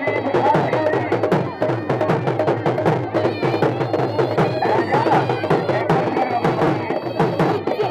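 Traditional folk music: a drum beating a quick, steady rhythm with a wavering reed-pipe melody over it.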